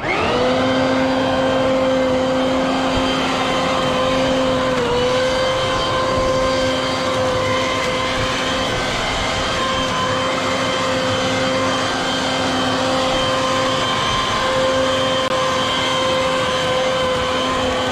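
Mac Allister MBV2800 2800 W corded electric blower vac switched on in vacuum (suck) mode: its motor and fan spin up at once to a loud, steady whine and run at full speed while it sucks up lawn debris into its bag. The pitch dips briefly about five seconds in.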